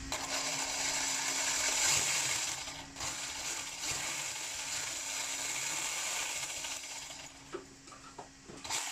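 Battery-powered RC car's motor and drivetrain running, a steady mechanical whirring with rattling that dips briefly once and dies down after about seven seconds. The car has a fault: some looseness (play) in it.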